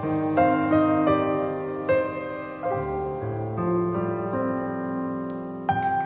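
Background music: a gentle piano melody, notes struck about one or two a second over sustained chords.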